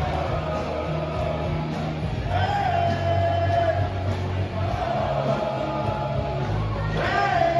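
Loud party song with a heavy, steady bass line and a sung melody held in long notes, the crowd singing along after the count-in, with some shouts and whoops.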